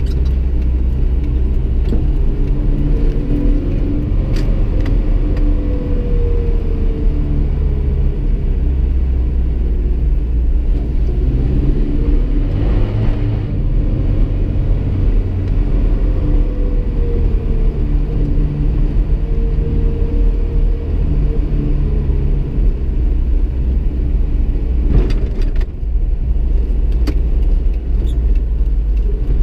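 1986 Toyota pickup driving, heard from inside the cab: engine running with its pitch rising and falling as it pulls away and changes gear, over a steady low road rumble. A sharp knock sounds near the end.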